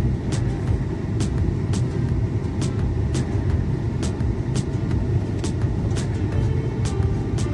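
Vehicle engine running steadily, heard from inside the cab as a low rumble, with a light regular clicking about twice a second.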